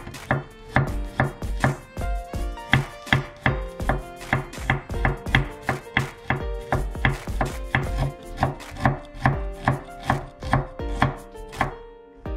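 Kitchen knife chopping garlic, and near the end chili peppers, on a bamboo cutting board: an even run of sharp knocks of the blade on the wood, about three a second.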